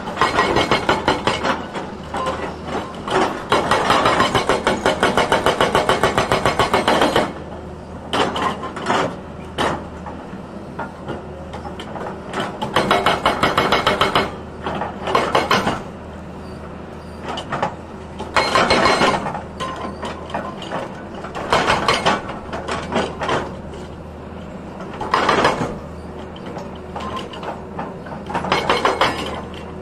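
Hydraulic rock breaker on a Tata Hitachi excavator hammering rock with rapid blows: one long run of about seven seconds, then shorter bursts every few seconds. The excavator's diesel engine runs steadily underneath.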